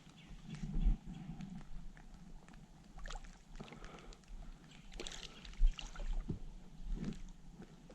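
Water sloshing and splashing with scattered knocks from handling things in a small fishing boat, the loudest a sharp knock about two thirds of the way through.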